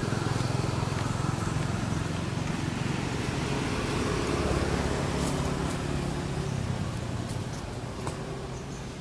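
A motor vehicle's engine running steadily, a low hum that eases off a little near the end.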